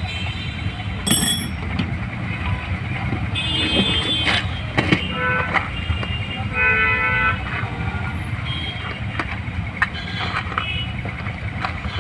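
Steady street-traffic rumble with vehicle horns honking several times, plus scattered clicks.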